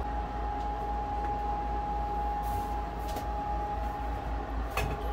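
A steady low rumble with a constant thin hum, as of running machinery, and a few faint clicks, the sharpest just before the end.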